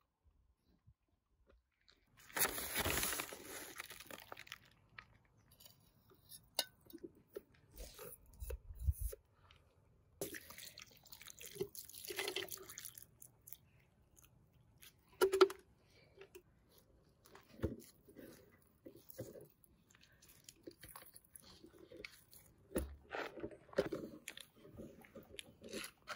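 Food being prepared by hand: irregular crunches, scrapes and sharp clicks in short bursts, with quiet pauses between them.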